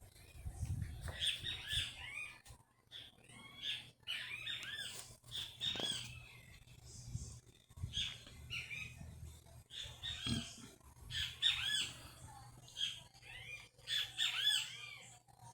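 Several kittens mewing: many short, high, rising-and-falling cries in overlapping clusters, repeating throughout.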